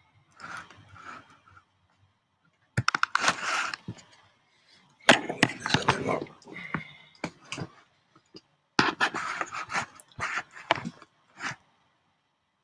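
Clattering and scraping of objects being handled close to the microphone: sharp clicks and rubbing in three bursts of a second or two each.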